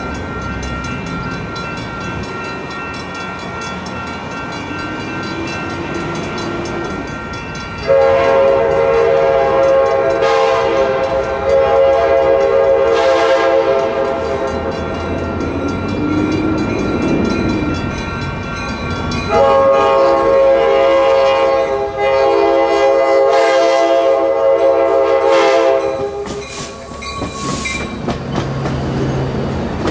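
An Amtrak Surfliner train's Nathan K5LA five-chime air horn sounds two long blasts, each a chord of several tones, the first starting about eight seconds in and lasting about eleven seconds, the second about six seconds. Near the end the train passes close by with a rumble and a clatter of wheels on the rails.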